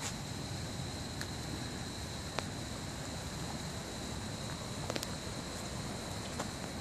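Outdoor ambience: a steady high, thin insect drone over a low wind rumble on the microphone, with a few faint ticks.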